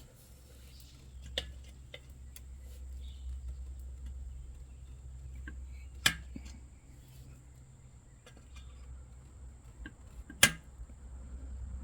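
A few sharp clicks and knocks of hand tools against metal parts during work on an ATV, the loudest two about six and ten seconds in, over a low steady hum.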